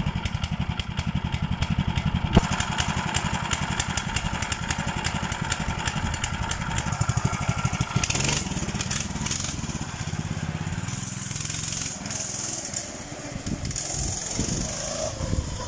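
Single-cylinder Lifan 6.5 hp engine of a Draxter off-road motorcycle running at a steady idle. About eight seconds in the engine note changes as the bike pulls away, then it gets quieter as the bike rides off.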